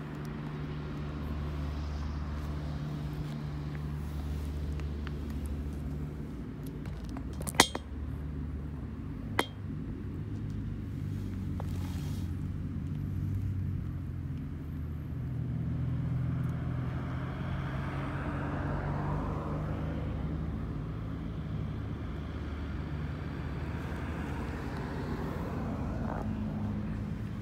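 Steady low engine-like hum from the outdoor surroundings, with two sharp clicks about two seconds apart.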